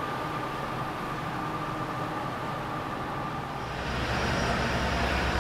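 Marine diesel engines of a tugboat and cargo ship running, a steady drone with a thin whine over it. A little past halfway it switches to a louder, deeper engine rumble.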